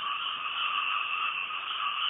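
A dense chorus of many frogs calling at once, a steady overlapping din with no pauses.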